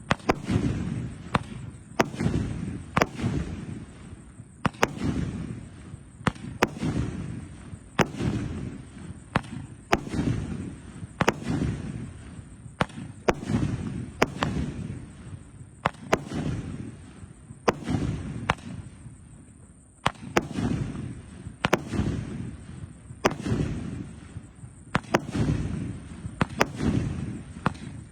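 A 666-shot consumer fireworks cake of 2-inch shells firing in sequence: sharp bangs about once a second, each trailed by a low rumbling boom, with a brief lull about two-thirds of the way through.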